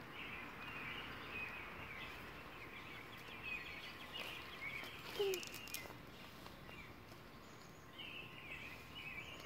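Faint birdsong: small birds chirping on and off over quiet background noise, with a few light clicks around the middle.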